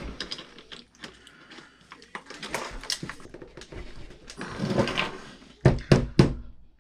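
Small metal hand tools clicking and scraping against an RC truck's wheel hub as a wheel hex is forced onto a splined axle, binding because the splines are damaged. Several sharp clicks come near the end.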